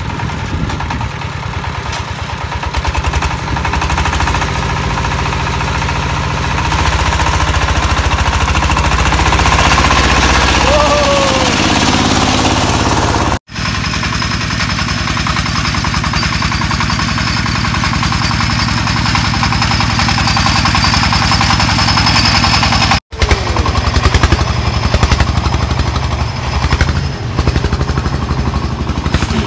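Single-cylinder diesel engine of a công nông farm truck running with a rapid, even chugging beat while hauling a load of firewood. The sound cuts out for an instant twice.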